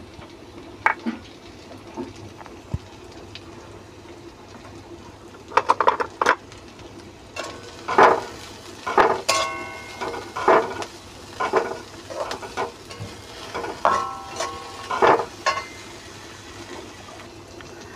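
A metal spatula scrapes and knocks against a metal kadai as diced potatoes, onion and peanuts are stirred and fried in ghee, with a faint sizzle underneath. The stirring starts about five seconds in as a run of scrapes, and a few knocks leave the pan ringing briefly.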